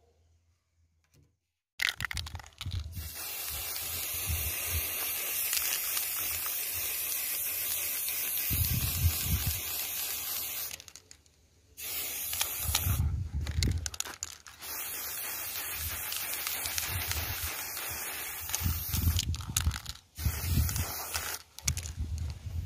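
Aerosol spray-paint can spraying paint onto a PVC-pipe phone stand: starting about two seconds in, a steady hiss for about nine seconds, then several shorter bursts with brief pauses between them.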